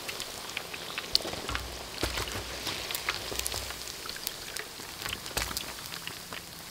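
Chicken pieces deep-frying in a wok of hot oil: a steady sizzle dotted with many sharp crackles and pops, with a few dull low bumps.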